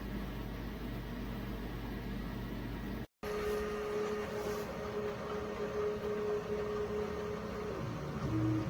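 Flashforge Adventurer 5M 3D printer running: a steady whir of fans, and after a cut about three seconds in, a held motor whine that drops in pitch near the end.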